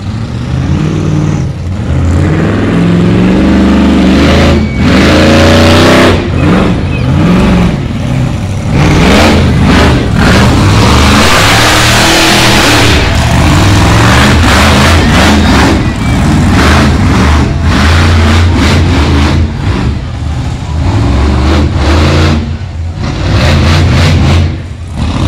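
Monster truck engine revving hard in repeated surges, its pitch rising and falling as the truck accelerates, jumps and stands up on its rear wheels in a sky wheelie.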